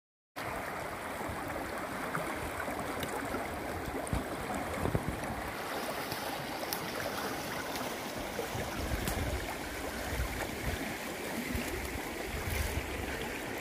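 Shallow river rushing over stones in small rapids: a steady rush of water that cuts in suddenly just after the start.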